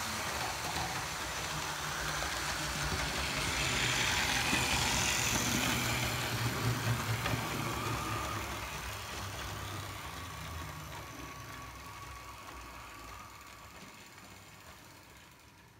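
Hornby APT OO-gauge model train running on its track, with the motor whirring and the wheels rattling over the rails. It grows louder as it approaches, is loudest as it passes close by around the middle, then fades away as it runs off.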